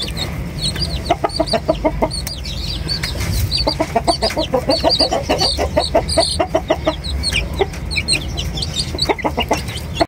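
Chicks peeping with many short high cheeps, while a chicken clucks in quick runs of low notes, three times about three seconds apart.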